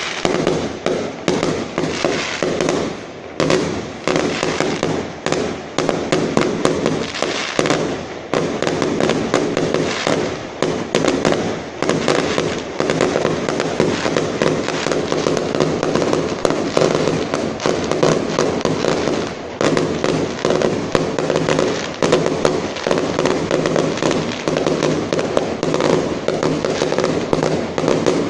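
Fireworks display going off in a rapid, continuous barrage of bangs and crackles, many a second without a break.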